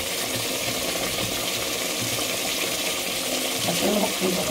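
Chicken pieces in a spiced yogurt masala sizzling steadily in an aluminium pressure-cooker pot, the yogurt having let out its water.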